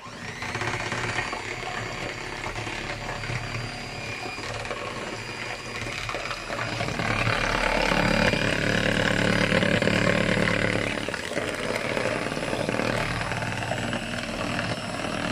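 Electric hand mixer running, its beaters whisking a thin egg-and-milk mixture in a plastic bowl; a steady motor whine with a swishing of the liquid, louder for a few seconds midway.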